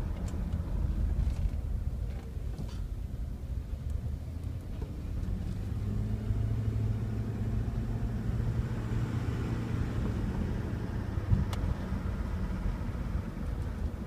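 Cabin sound of a 1999 Jeep Grand Cherokee's V8 and drivetrain under way: a steady low rumble with the engine note rising gently and holding through the middle, and a faint whine above it. The owner suspects the whine is a transmission noise that comes only under throttle in 2nd gear and up with a cold engine. One sharp click comes about eleven seconds in.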